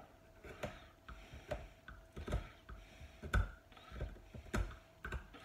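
Irregular light knocks and clicks, roughly one a second, some with a dull thump, from hand work picking and chipping loose material off a wooden table.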